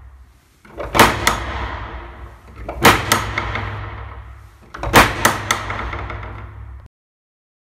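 Loud cinematic impact hits with a long echoing tail, struck in groups about every two seconds over a low steady drone. The sound cuts off abruptly about a second before the end.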